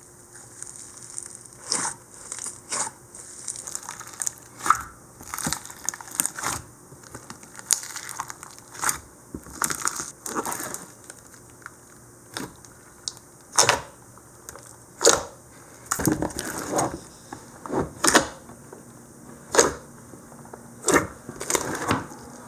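Icee slime being pressed, poked and stretched by hand, giving irregular crunchy crackles and crinkles, some single and some in quick runs.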